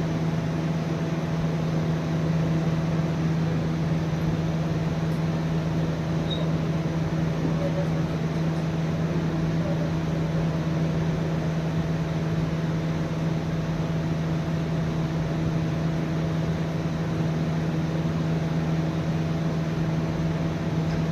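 A steady machine hum: one constant low drone with fainter higher tones over an even hiss, unchanging throughout.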